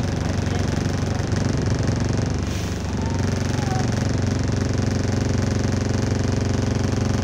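Bus engine idling steadily with a loud rattle, heard from inside the passenger cabin; the exhaust is slightly blown.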